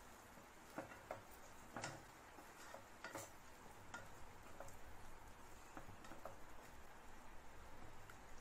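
Wooden spatula stirring meat in a non-stick pot: faint, irregular clicks and scrapes of the spatula against the pan.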